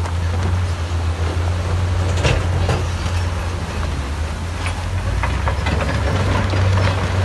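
Heavy diesel engines of a tipping dump truck and a bulldozer running steadily with a low hum, with scattered sharp clacks of rock tumbling off the raised truck bed.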